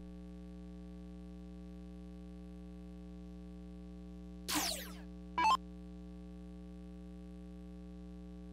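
Arachnid electronic dartboard sound effects: a falling electronic swoosh about four and a half seconds in, then a short bright electronic blip a second later, over a steady electrical hum.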